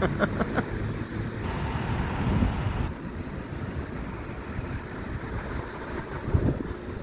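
Street traffic: cars driving past close by, a steady low rumble of engines and tyres on the road.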